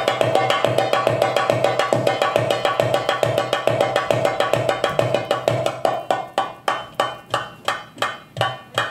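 Live Arabic percussion ensemble of frame drum, riqq and hand drum playing a fast improvised rhythm. Over the last few seconds it slows into single, evenly spaced strokes about three a second, ending just before the close.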